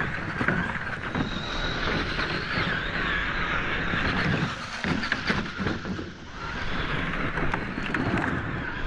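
Scale RC 4x4 crawler driving over loose dirt and rocks: its electric motor and gearbox whine, rising and falling with the throttle, while the tyres crunch and click over gravel. The sound drops for a moment about six seconds in.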